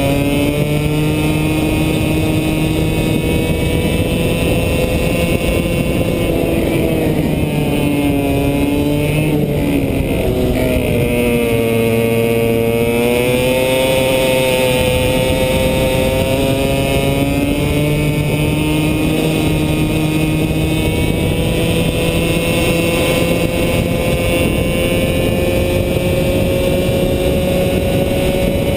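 100cc two-stroke go-kart engine running at high revs through a lap, heard from on board the kart. About a third of the way in the pitch sinks as the kart slows for a corner, then climbs back and holds high as it accelerates out.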